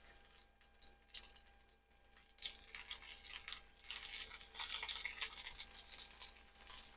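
Pork chops sizzling faintly in hot ghee in a cast iron skillet, an irregular crackling hiss with small pops, busiest in the middle.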